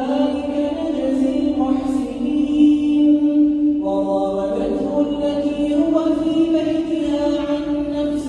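A man reciting the Quran as a slow, melodic chant, holding long notes.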